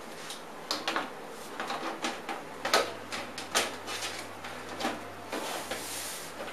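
Metal side panel of a Corsair 300R PC case being fitted and slid into place: a series of light clicks and knocks as it seats against the chassis, with a brief sliding scrape about six seconds in.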